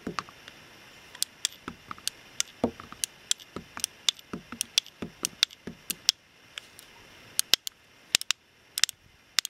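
Irregular run of sharp metallic clicks from an M1895 Nagant revolver being unloaded by hand. The cylinder is clicked round chamber by chamber, and the 7.62 Nagant cartridges are pushed out one at a time through the loading gate.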